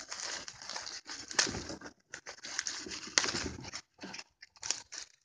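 Packaging being torn and pried open by hand without a knife, in a run of irregular ripping and crinkling rasps with short pauses between them.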